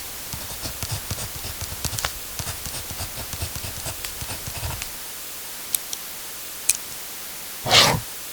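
Writing on paper with a pen or pencil: a run of small irregular scratches and taps for about five seconds, then a few separate clicks and one short, louder stroke near the end.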